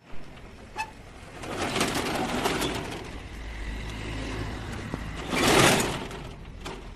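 Rolling steel shop shutter pulled down with a hooked pole, its metal slats rattling for a couple of seconds, with a small metallic ping just before. A louder rush of noise comes near the end.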